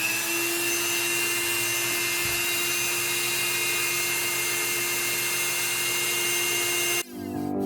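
Rotary tool with a small abrasive cutting disc running at a steady whine while cutting into the metal wall of a 5-litre beer keg, with a gritty grinding hiss; it cuts off suddenly near the end and music begins.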